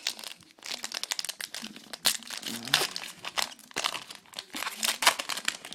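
A baseball card pack's wrapper being torn open and crinkled by hand, a steady run of irregular crackles.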